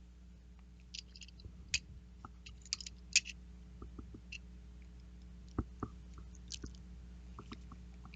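Hand tools working on a Shimano 105 R7000 road-bike shifter while a tight screw is forced loose: scattered small clicks, ticks and scrapes of metal and plastic, the sharpest about three seconds in and two duller knocks near six seconds.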